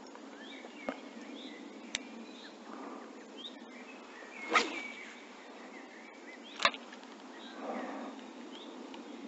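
Birds chirping in short scattered calls over a steady outdoor hiss, broken by four sharp clicks or taps; the loudest comes about halfway through.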